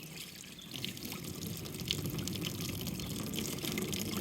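Running water splashing steadily, growing louder about a second in.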